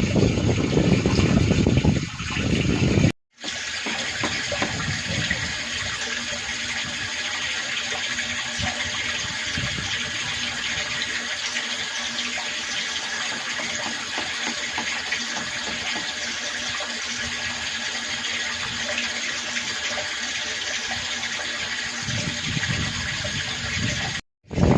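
Water running steadily from a tap into a rooftop water tank as it fills. The first three seconds hold a louder low rumble, which stops abruptly.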